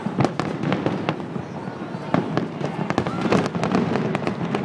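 Fireworks display going off: a rapid string of sharp bangs and crackles over a steady rumbling background, thickest in the middle of the stretch.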